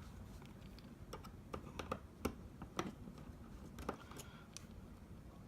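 Faint, irregular light clicks and ticks from a small Phillips screwdriver and tiny screws being worked out of an iPhone 6's internal cable cover and set down.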